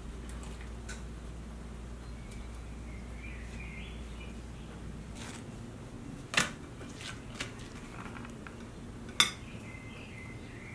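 Two sharp clinks of tableware, a glass plate and a metal spoon against a small steel bowl, about three seconds apart with a fainter tap between them, over a low steady room hum.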